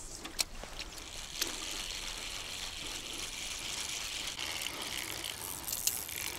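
Rushing river water with a spinning reel being cranked on a retrieve, its gears whirring steadily. A few sharp clicks come about half a second in, about a second and a half in, and near the end.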